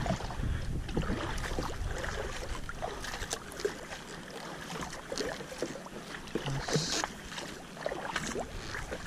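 Kayak paddle strokes on a lake: the blades dip and pull through the water with splashes and drips and scattered small clicks, and a louder splash comes about two-thirds of the way through.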